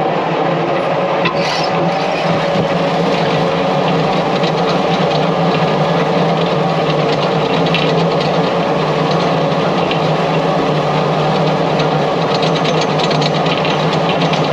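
Tractor diesel engine running steadily at a constant speed, with a light rattle near the end.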